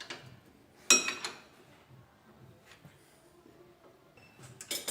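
Metal clinks of open-end wrenches and the ball-joint pinch bolt as the bolt is worked loose and removed: one sharp clink about a second in, then a quick run of clicks near the end.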